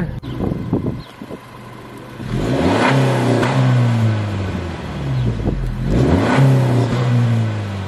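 Honda Civic hatchback's turbocharged 1.5-litre four-cylinder revved twice while standing, heard through its stock exhaust still fitted with muffler and resonator. Each rev climbs, holds briefly and falls back to idle.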